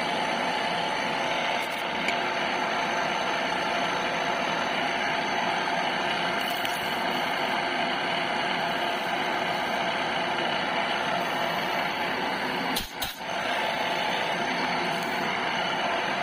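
Drilling machine's spindle running steadily as its drill bit cuts a hole into a metal shaft clamped in a vice, with a brief dip and click about 13 seconds in.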